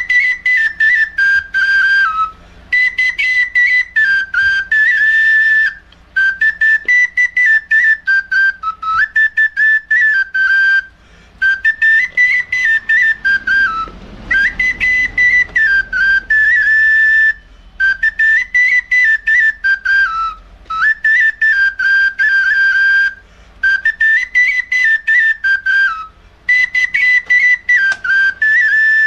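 Small red plastic end-blown flute playing a high melody in phrases of quick, tongued notes, with short breaks for breath between phrases every two to three seconds.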